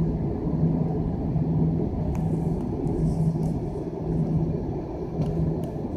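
Airliner cabin noise in flight: a steady low engine and airflow drone, with a hum in it that swells and fades about once a second. A few faint clicks sound about two seconds in and near the end.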